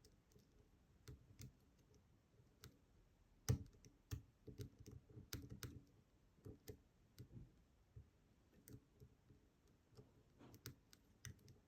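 Faint, irregular clicks of a lock pick working the pins of an ASSA 700 pin-tumbler lock under tension, with one louder click about three and a half seconds in.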